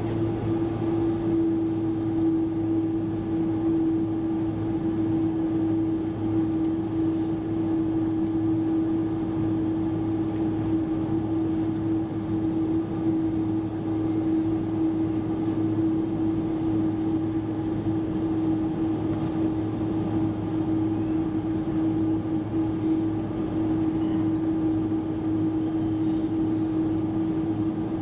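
Cabin noise inside a Boeing 747-400 at takeoff: the four jet engines at takeoff thrust make a loud, steady drone with a steady humming tone over rushing noise.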